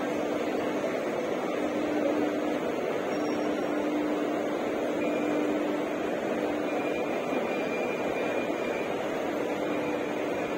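Steady running noise of an Indian Railways ICF passenger coach in motion, heard from inside as an even rumble with a faint steady hum and no distinct rail-joint clicks.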